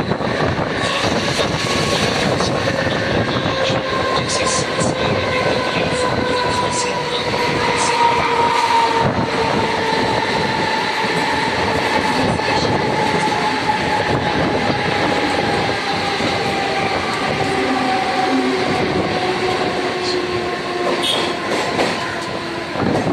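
Mumbai suburban electric local train running, a steady loud rumble and wheel clatter with a motor whine that slides slowly down in pitch.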